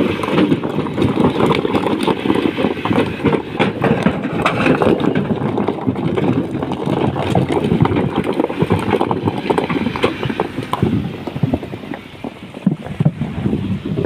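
Massey Ferguson 265 tractor's diesel engine running, with a dense, irregular clatter over it. The clatter eases briefly about twelve seconds in.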